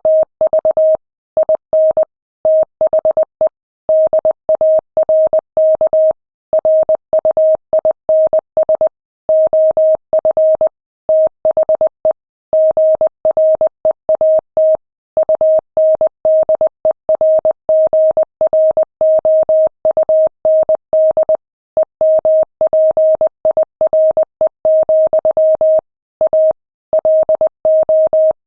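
Morse code at 20 words per minute: a single-pitch beep keyed on and off in short dots and longer dashes, with brief gaps between letters and longer pauses between words.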